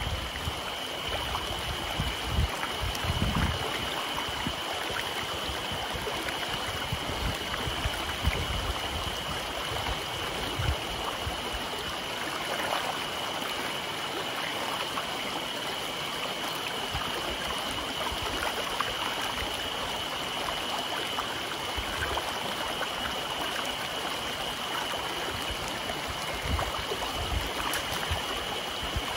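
Shallow mountain stream running over rocks and pebbles, a steady babble of flowing water.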